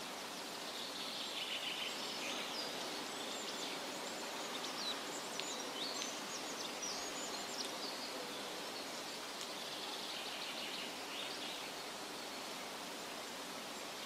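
Steady hiss of outdoor background noise with small birds chirping and twittering faintly, busiest through the middle and thinning out near the end.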